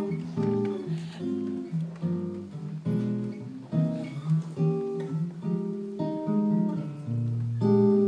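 Solo acoustic guitar playing the slow chordal introduction to a ballad, each chord plucked and left to ring, with a new chord every half second to a second.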